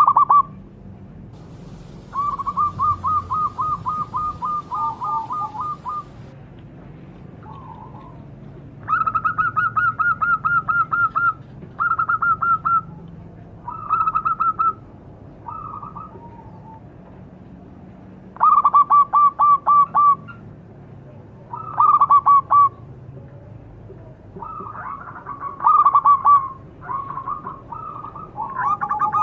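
Zebra dove (perkutut) cooing: about nine phrases, each a quick run of short staccato coo notes lasting one to four seconds, separated by pauses of a second or two.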